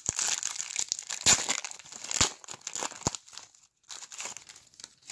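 An NBA Hoops trading-card pack's wrapper crinkling and tearing as it is pulled open by hand, with a few sharper crackles in the first three seconds, then fading to faint rustling near the end.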